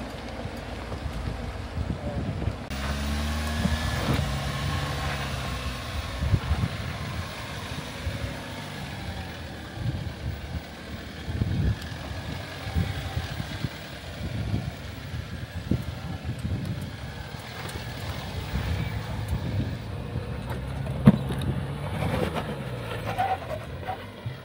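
Jeep engine running at low revs as the Jeep crawls up a rock climb, its pitch rising and falling with the throttle. Scattered knocks throughout, the sharpest about 21 seconds in.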